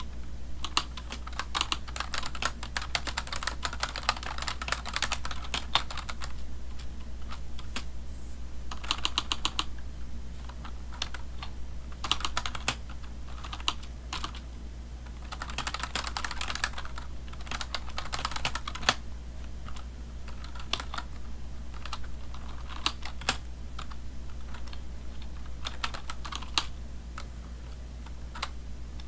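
Typing on a computer keyboard: runs of rapid key clicks in bursts, with short lulls between them, over a steady low hum.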